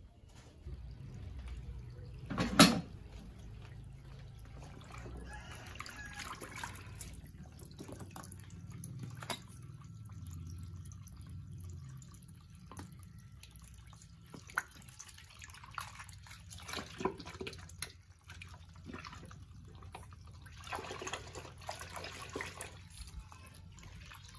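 Water running from a hose into a washing machine tub full of clothes, with a single sharp knock about two and a half seconds in.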